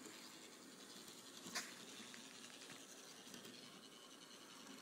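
Model single-truck Brill trolley running on its track under overhead wire, a faint steady running noise with one sharp click about a second and a half in.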